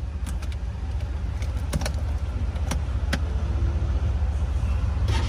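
An engine running with a steady low rumble, with a handful of sharp clicks over it.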